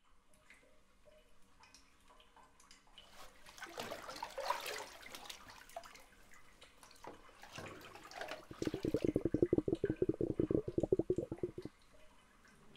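Bathwater sound effects: faint drips and sloshing, a louder swell of splashing water about four seconds in, then rapid bubbling for about three seconds, the loudest part.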